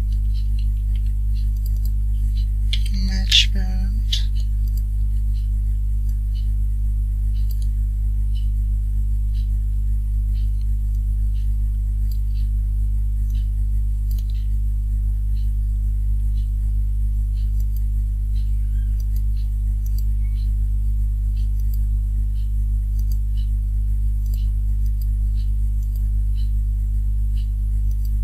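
Steady low electrical mains hum on the recording, with faint keyboard and mouse clicks scattered throughout as code is typed. About three seconds in there is one brief, louder pitched sound.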